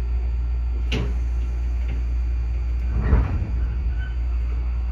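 Iyo Railway 3000 series electric train standing at a station, heard from inside the car: a steady low hum from the car's equipment, a sharp click about a second in and a low thump about three seconds in.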